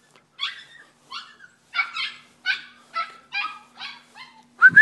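A puppy yipping: a quick run of short, high barks, about two a second, with a louder, sharper yelp near the end.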